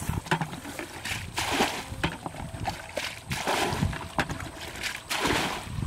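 Ditch water being scooped up in a plastic bucket and thrown out in splashes, three times, about one every two seconds: the ditch is being bailed dry to get at the fish.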